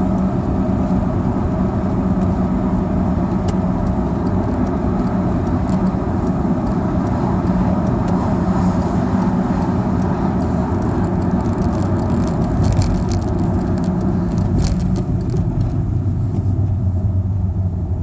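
Volkswagen Scirocco 2.0 TDI diesel under way, a steady engine hum with road noise, and a few light clicks in the second half.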